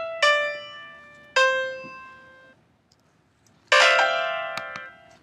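Bell-like electronic keyboard notes from an Arduino and MAX/MSP glove instrument, each struck and dying away: two single notes in the first second and a half, a second of silence, then a dense cluster of notes together near the end.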